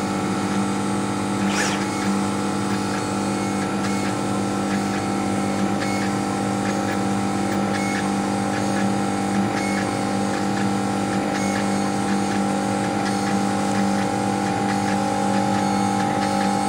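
Laser cutter running as it cuts a wooden board: a steady machine hum made of several held tones, with faint short ticks throughout and a brief hiss about a second and a half in.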